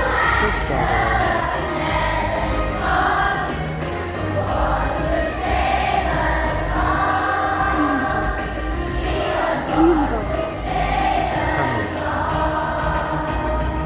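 A group of voices singing a song with musical accompaniment, in sustained sung phrases over a steady low backing.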